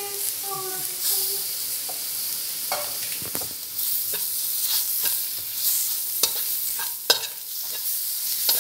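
Onion slices, curry leaves and green chillies frying in oil in a wok, sizzling steadily, while a metal spatula stirs and scrapes them round the pan with short scrapes and clicks.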